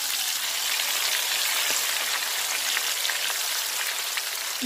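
Batter-coated chicken pieces deep-frying in hot oil in a steel kadai, sizzling steadily with a fine, constant crackle.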